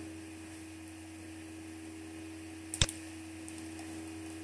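Computer mouse click, one sharp click a little under three seconds in, over a faint steady electrical hum.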